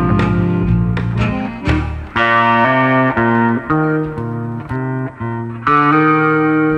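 Background music led by guitar, moving in held notes from one pitch to the next, with a short break about two seconds in.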